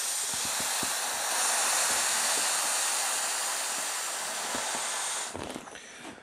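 Air hissing steadily out of the small water-wings-style push valve of an inflatable kayak seat as the seat is pressed flat, dying away about five seconds in.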